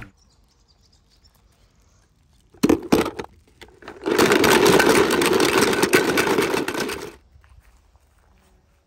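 Toy cars being handled: a few sharp knocks about two and a half seconds in, then about three seconds of loud, steady rattling that stops suddenly.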